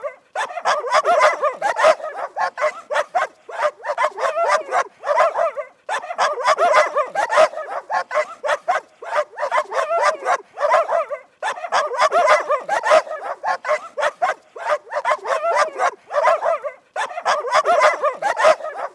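Dog barking in fast, continuous runs of short barks, several a second, with brief pauses about every five to six seconds.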